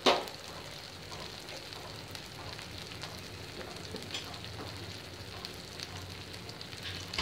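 Onion, garlic and ginger masala frying in oil in a kadai, with a steady soft sizzle and faint scattered pops. A single sharp knock comes right at the start.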